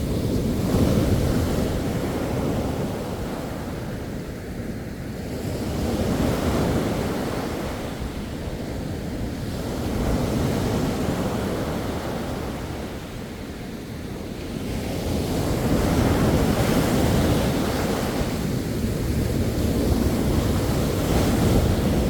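Sea waves breaking and washing up the shore, a steady rushing surf that swells and ebbs every few seconds.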